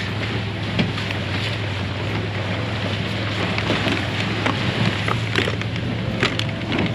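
Can-Am side-by-side engine running steadily while the vehicle drives over rocky ground, with wind on the microphone and scattered knocks.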